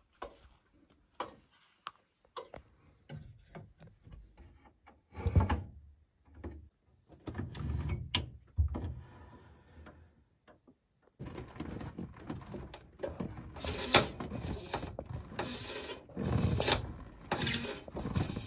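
Small metal cockpit controls being handled on a Pratt & Whitney R-1340 radial-engine aircraft: scattered clicks and knocks as knobs are turned. About eleven seconds in, a denser rasping, mechanical sound begins and comes in repeated strokes as the knurled engine primer knob is worked.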